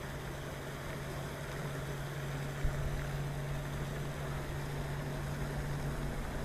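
A steady low mechanical hum over an even hiss, with one short click a little over two and a half seconds in.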